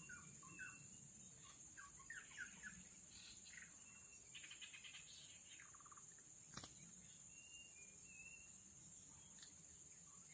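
Tropical forest ambience: a steady high-pitched insect drone with scattered short bird chirps and brief whistled notes, and a single sharp click about two-thirds of the way through.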